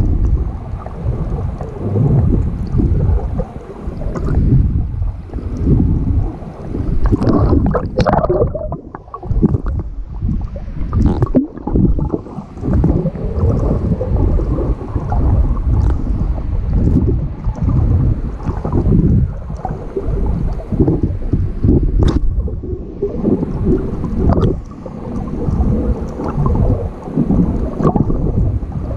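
Muffled rumble of water moving around a camera held underwater, rising and falling in surges, with a couple of sharp clicks.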